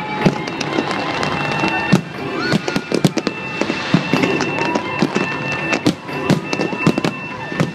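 Fireworks display: aerial shells bursting in quick, dense succession, many sharp bangs and crackles overlapping several times a second.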